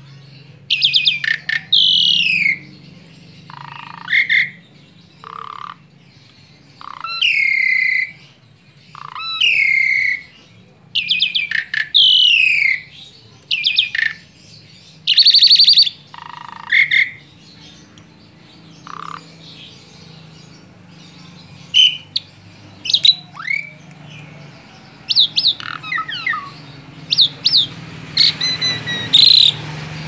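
Asian pied starling singing a varied song of loud falling whistles mixed with harsh squawks and clicking notes. The calls thin out about halfway through, then return as quicker, shorter notes.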